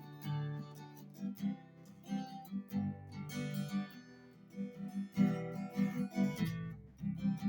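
Acoustic guitar strummed in an instrumental break of a song, with no singing; the strumming grows louder about five seconds in.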